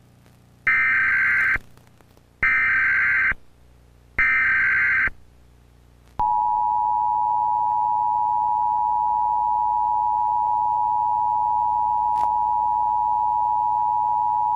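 Emergency Alert System alert for the nationwide EAN test: three one-second bursts of buzzy digital header data, then the steady two-tone attention signal held for about eight seconds.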